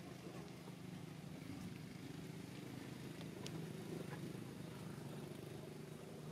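A faint, steady engine hum, with a few faint clicks in the middle.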